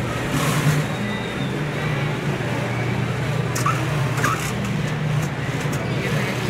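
Steady low hum of workshop machinery, with fabric being handled and a few light clicks a little past the middle.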